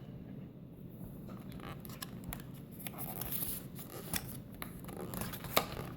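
Pages and flaps of a lift-the-flap children's book being handled and turned, with a soft paper rustle and many small sharp clicks and crinkles.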